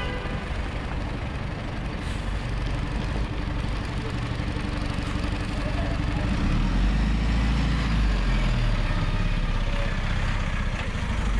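Engine of a box delivery truck running as it pulls slowly past close by, a low rumble that grows louder about six seconds in as the truck draws alongside, over general street noise.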